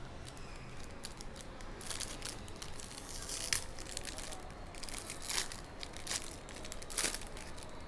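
Crinkling and tearing of a 2021/22 Prizm Basketball hobby pack's wrapper as it is handled and torn open, in uneven bursts of crackling.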